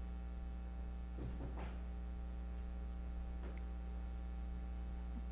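Steady low electrical mains hum, with a couple of faint brief sounds about a second and a half and three and a half seconds in.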